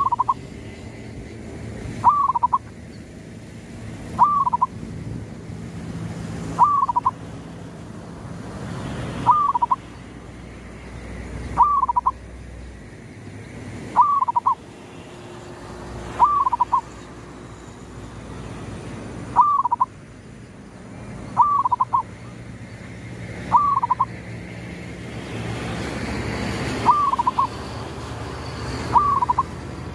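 Caged zebra dove (perkutut) repeating a short cooing call about every two seconds, around a dozen times. It is a decoy bird's call used to lure in rival doves.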